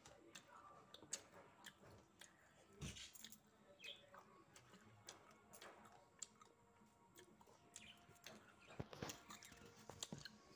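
Faint chewing on meat bones, with scattered short clicks.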